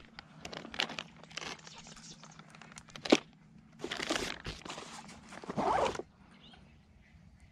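Plastic soft-bait packet crinkling and rustling as it is handled in a float tube's side pocket and opened by hand, with a sharp click about three seconds in.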